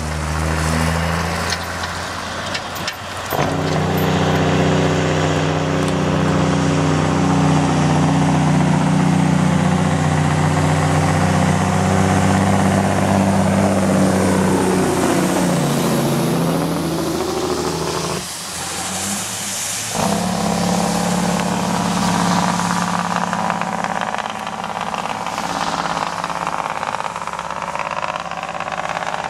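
Straight-piped Freightliner semi tractor's diesel engine pulling hard with a heavy lowboy load, a loud, deep exhaust note. The truck passes close by around the middle, its pitch sweeping down and up. The engine note drops away briefly about three seconds in and again for over a second past the middle.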